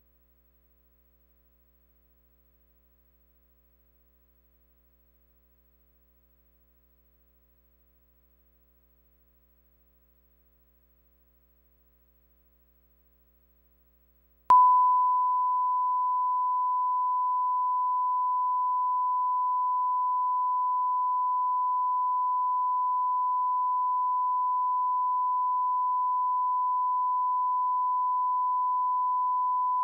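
Near silence with a faint low hum, then about halfway through a steady 1 kHz test tone starts abruptly and holds unbroken: the line-up reference tone that goes with colour bars.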